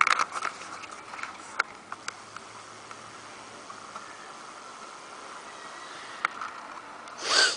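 A person sneezing once, loudly, near the end, after a few small clicks and taps over a quiet background.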